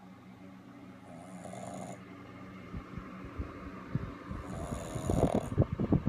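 Pug snoring in its sleep: two long, breathy snores, then a rapid, irregular rattle that grows louder near the end.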